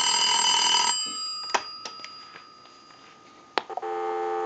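Bellsouth Trimline telephone ringing on a test ring cycle, the ring stopping about a second in. A few light clicks follow as the handset is lifted, then a sharp click and a steady dial tone starting near the end, heard through an amplified pickup.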